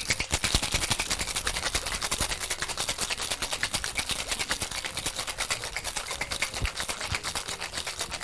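Ice cubes rattling and slamming inside a metal cocktail shaker as a Gimlet is shaken hard, in a rapid, even rhythm of clattering strikes. The shaking stops abruptly right at the end.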